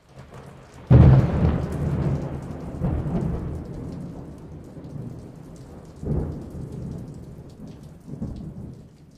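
Thunderstorm: a loud clap of thunder about a second in, rolling into rumbles that swell again three more times and die away, over steady rain.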